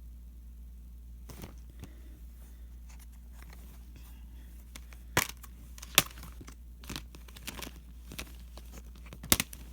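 Plastic Blu-ray case being handled and opened: scattered rustles and light clicks, with a few sharp snaps, over a low steady hum.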